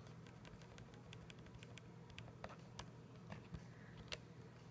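Faint, irregular clicking of TI-83 Plus graphing calculator keys being pressed one after another, a dozen or so presses, a few of them a little louder.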